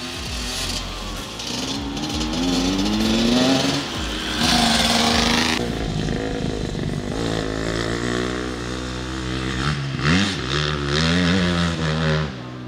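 Dirt bike engine revving hard, its pitch climbing and dropping back several times as the throttle opens and closes and it shifts gears.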